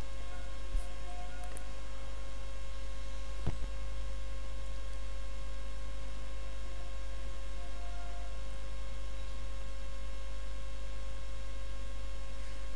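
Steady electrical mains hum in the recording, with a single short click about three and a half seconds in.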